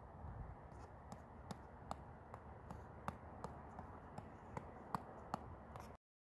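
Fists striking a headband-tethered reflex ball over and over, a steady rhythm of sharp taps about two and a half a second over a low background noise. The sound cuts out abruptly near the end.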